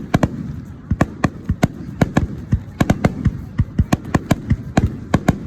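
Starmine firework barrage: shells bursting in rapid succession, several sharp bangs a second with echoing rumble between them.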